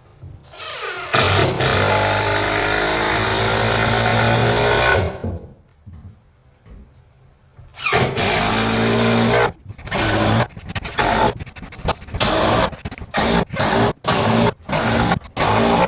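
Electric planer cutting green hickory boards: a loud, steady run of about four seconds, a pause of about three seconds, then the tool again, cutting in and out in short stretches.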